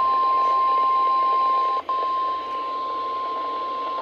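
NOAA Weather Radio 1050 Hz warning alarm tone: one steady high-pitched tone over radio hiss, with a brief dropout about two seconds in. It is the alert signal that comes before a warning message.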